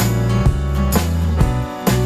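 Background music with a steady beat of about two strikes a second over sustained bass notes.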